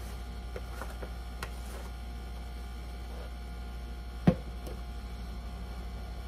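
Steady low hum, with a single sharp knock about four seconds in as a plastic jar of bouillon is set down on a glass cooktop.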